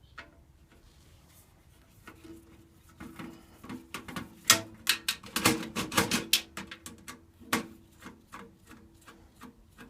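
Quick clicks, knocks and rattles of metal and plastic computer parts being handled and worked loose from a desktop PC case. They start a few seconds in, come thickest in the middle and thin out near the end.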